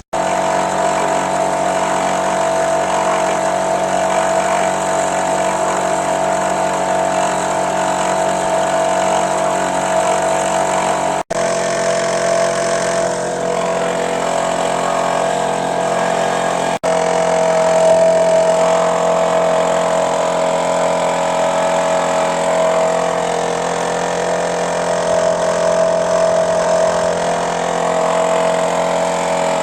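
An engine running steadily at an even speed, with a constant pitched hum.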